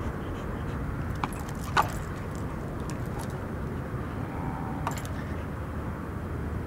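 Three short metallic clinks, the loudest about two seconds in, over a steady low rumble.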